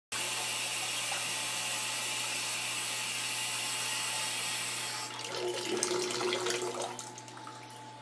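Tap running steadily into a claw-foot bathtub, shut off about five seconds in, followed by a couple of seconds of light water splashing and small knocks.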